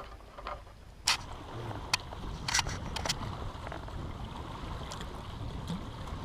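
Several sharp clicks and knocks of utensils against a metal cook pot and bowls as pasta is dished out and eaten, the loudest about a second in, over a steady low background rumble.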